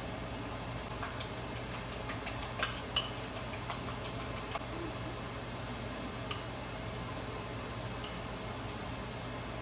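Metal kitchen utensils tapping and clinking against dishes and a pan while egg dosa is made: a run of quick light taps for a few seconds, a few sharper single clinks, and a steady low hum underneath.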